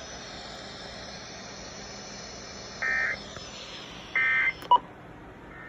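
Weather-radio receiver hiss, then the Emergency Alert System end-of-message: short bursts of SAME digital data tones, the second about 1.3 s after the first and a third starting near the end. A sharp click follows the second burst.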